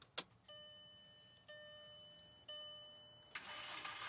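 A 2001 VW Jetta 2.0 being started: a click, then the dashboard warning chime dinging three times about a second apart. Just before the end the starter engages with a loud whirring, the whizzing sound the owner hears when he tries to start it; it turns over but won't start.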